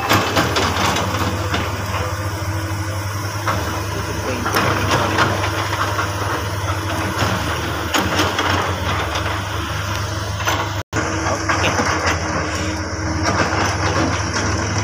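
Diesel engines of hydraulic excavators running steadily, with a few short knocks.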